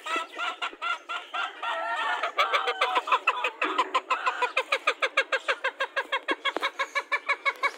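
Gamefowl chickens clucking in an even series of short calls. The clucks come a few a second at first and speed up to a fast run of about five or six a second from about two seconds in.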